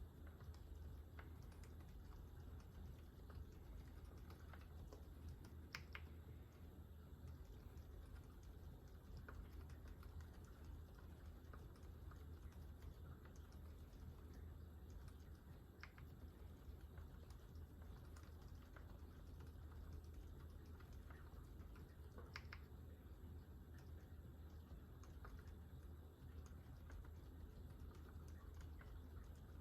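Faint, muted typing on a GMMK Pro mechanical keyboard with a brass plate and fully lubed Gazzew Boba U4 silent tactile switches: a steady run of soft, damped keystrokes with a few slightly sharper strokes, over a low steady hum.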